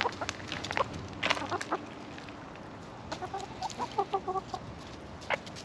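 Backyard hens clucking, with a quick run of short clucks about three and a half seconds in. Sharp clicking pecks sound throughout as they peck at scattered grain and the waterer's cups.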